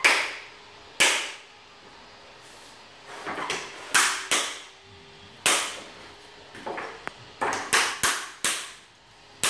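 Sharp plastic snaps and clicks, irregularly spaced and ringing briefly, as the wedges of a tile-levelling system are pressed into their clips with levelling pliers on large porcelain floor tiles.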